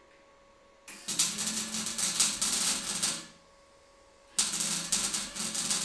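Electric arc welding on a steel tube frame: two runs of steady crackling, about two and a half and two seconds long, with a near-silent pause between them where the arc is stopped and restarted.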